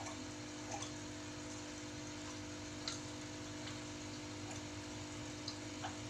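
A home aquarium with a sand waterfall running: a steady pump hum under a hiss of moving water, with a few scattered drips.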